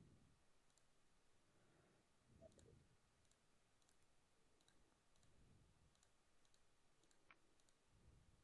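Near silence with faint computer mouse clicks, about one every half-second to second, as columns are selected one after another with the magic wand tool.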